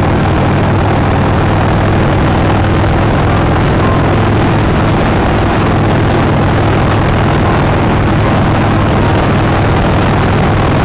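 Motorcycle cruising at highway speed heard from its own onboard camera: heavy wind rush over the microphone with the engine's steady low drone underneath, no changes in revs.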